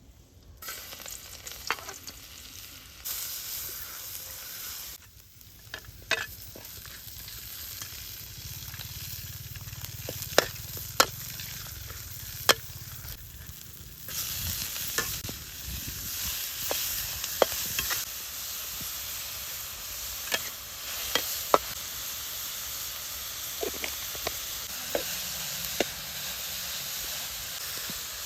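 Food frying and sizzling in a hot pan, stirred, with sharp clicks and knocks of a utensil against the pan scattered through; the sizzle grows louder about halfway through.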